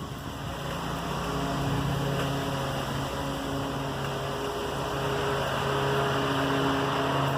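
Lawn mower engine running steadily, a constant hum.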